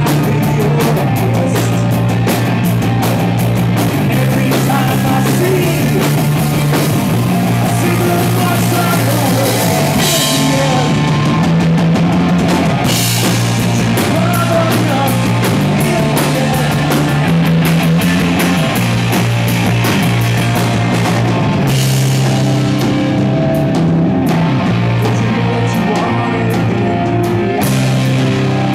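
Live punk rock band playing loud: distorted electric guitar, bass and a drum kit with dense cymbal crashes.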